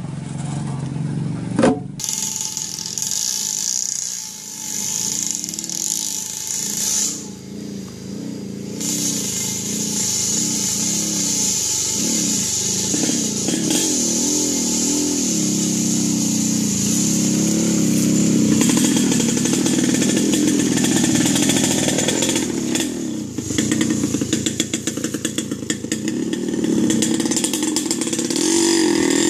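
Small motorcycle engine running hard under a heavy load of logs, its pitch wavering up and down as the throttle is worked, with a change of sound about two seconds in.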